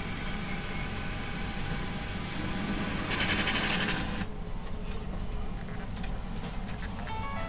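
Seven Bank ATM's internal mechanism running while it processes a cash withdrawal. About three seconds in, a loud rapid rattle lasting about a second, like banknotes being counted out. Near the end the machine starts playing an electronic chime melody.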